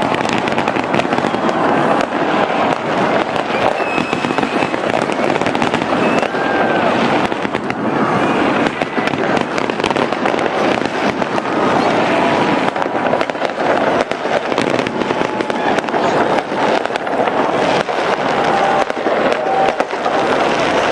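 A fireworks display going off without pause: a dense run of bangs and crackling pops over the voices of a crowd.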